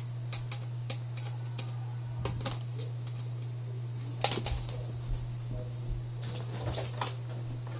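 Scattered light clicks and taps, with one sharper knock about four seconds in, over a steady low hum.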